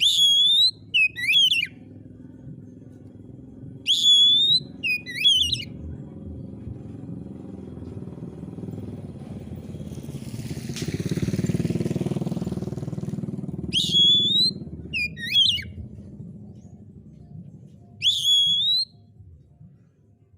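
Oriental magpie-robin (kacer) singing in loud, short whistled phrases, often in pairs, with pauses of several seconds between them. Underneath, a motor vehicle passes, its rumble swelling and fading around the middle.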